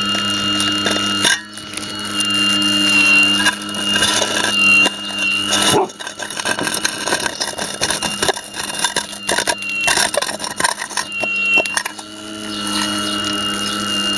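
Radio-controlled Hitachi 870 scale excavator's motors running with a steady whine, which drops out about six seconds in while the steel bucket scrapes and clatters on gravel and broken concrete, then comes back near the end.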